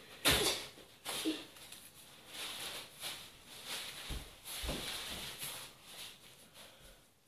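Homemade glue slime being handled and worked by hand: irregular soft squishing and rustling, with a few light knocks on the table.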